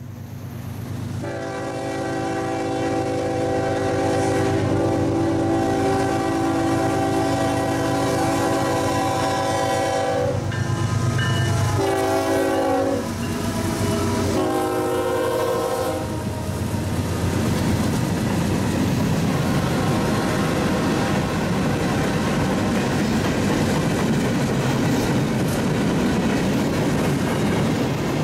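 A train's multi-tone air horn sounds one long blast, then a few shorter blasts, over the low rumble of locomotive engines. After about 16 seconds the horn stops and the train rolls past with steady wheel and rail noise.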